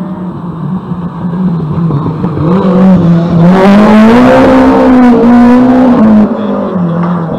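Rally car driving past at speed at close range. Its engine note rises and holds, loudest with tyre and exhaust noise from about three and a half seconds in, then drops off sharply about six seconds in.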